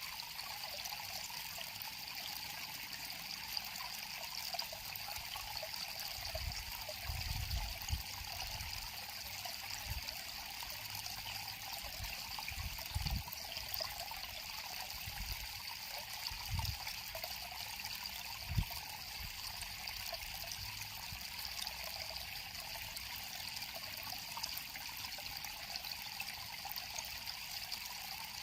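River water flowing and trickling steadily over rocks, with a few brief low thumps in the first two-thirds.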